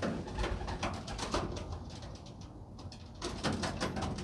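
Racing pigeons cooing, with a quick rhythmic rattle starting about three seconds in.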